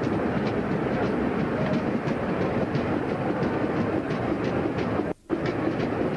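Running noise of a replica vintage railway carriage heard from inside, a steady rumble with the wheels clicking over rail joints. The sound cuts out for a moment about five seconds in.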